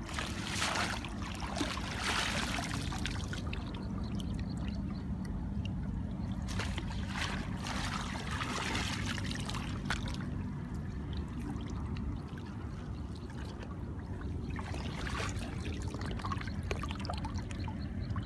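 Woven bamboo fishing basket scooped through shallow lake water, with water splashing and trickling out through the weave in several spells.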